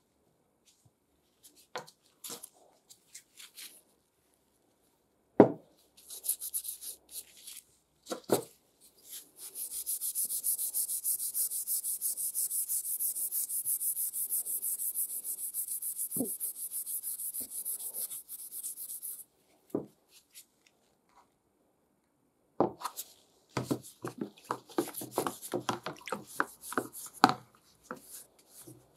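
A brass saw spine scrubbed back and forth with an abrasive pad: a steady, rapid rubbing hiss lasting about ten seconds. It is preceded by a few separate knocks of things set down on a wooden table, and followed near the end by a run of knocks and rattles as the spine is handled in a plastic tub.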